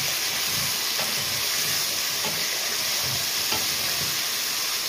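Chicken pieces sizzling in hot oil in a metal karahi: a steady frying hiss, with a wooden spatula scraping and stirring them a few times.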